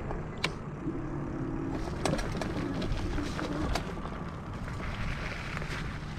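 Bicycle rolling along: a steady low rumble of tyres and wind, with a few sharp clicks and rattles from the bike.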